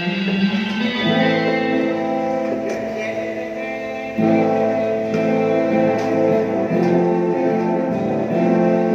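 Instrumental music with guitar to the fore, held notes changing in steps; it gets louder about four seconds in.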